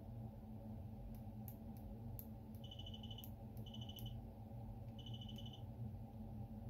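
Handheld remote-frequency tester beeping three times in short rapid trills as it picks up the BMW key's 433.92 MHz signal, a sign that the repaired key board is transmitting. Small clicks of the key's push-buttons being pressed come before and between the beeps.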